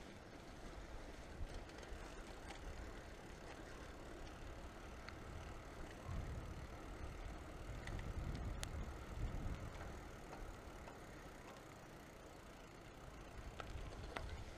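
Bicycle riding on a paved road, heard from a camera mounted on the bike: a steady low rumble of wind on the microphone and tyre noise, with a few light clicks and rattles. The rumble grows louder for a few seconds past the middle.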